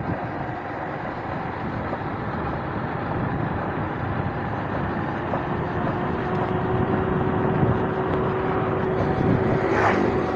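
Engine and road noise of a moving vehicle, heard from on board: a steady rumble that grows slowly louder, with a steady hum joining about halfway through.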